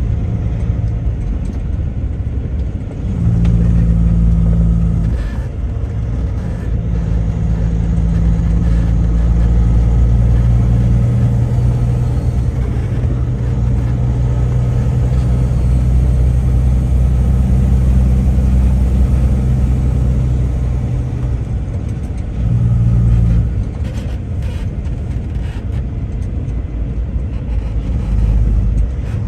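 A vehicle's engine and road noise heard while driving: a steady low drone that rises and falls several times as the throttle changes.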